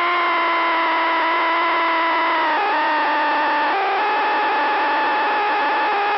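Radio interference from static charge building up on the airframe in a thunderstorm, heard through the aircraft radio as a loud, steady buzzing tone with overtones. Its pitch drops slightly about two and a half seconds in and shifts again just before four seconds.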